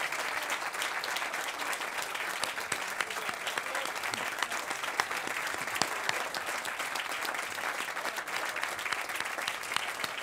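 Audience applauding: many people clapping in a dense, steady patter of claps.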